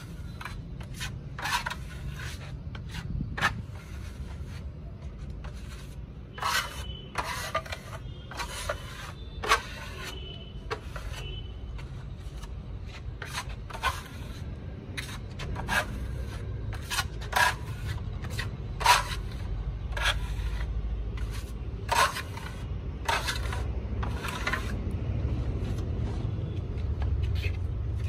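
Metal trowel and putty blade scraping across a wall as a coat of wall putty is spread, in short irregular strokes about one or two a second, over a steady low rumble.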